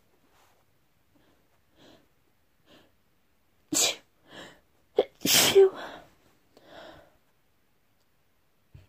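A person sneezing twice, with short catching breaths before and between. The first sneeze is short and sharp, about four seconds in; the second, a second or so later, is louder and longer, followed by softer breaths.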